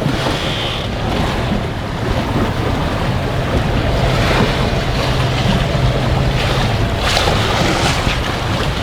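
Strong wind buffeting the microphone over choppy water lapping against a small boat, with a low steady hum through the middle.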